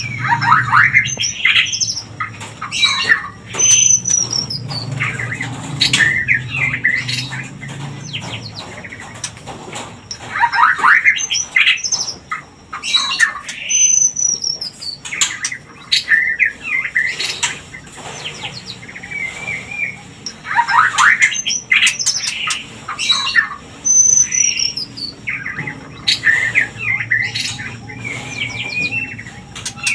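White-rumped shamas calling: harsh chattering squawks mixed with short whistled notes, among them a high falling whistle. The sequence repeats about every ten seconds. These are the calls used as a lure to bring shamas into breeding condition.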